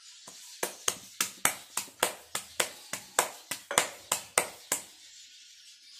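Millet (bajra and jowar) rotlo dough being patted and slapped between the palms to flatten it into a round: a steady run of about fifteen soft slaps, roughly three a second, that stops near the end.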